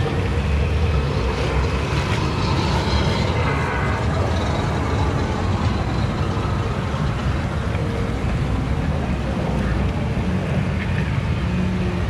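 Fast, choppy river water rushing around a round rafting-ride boat: a steady, loud rumbling wash.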